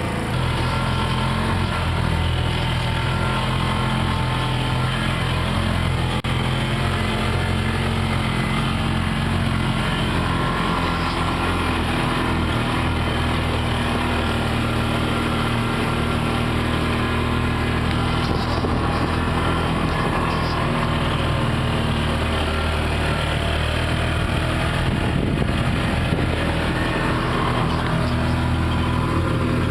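A pickup truck's engine running steadily while driving, a continuous low hum with road and wind noise over it.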